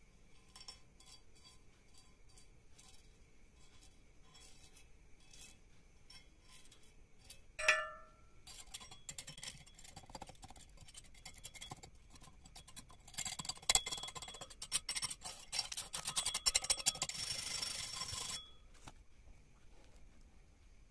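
Metal blade chipping and scraping slag off stick-weld beads on a steel plate. A single ringing clink comes about eight seconds in, then scratching and rasping that grows louder and stops abruptly a few seconds before the end.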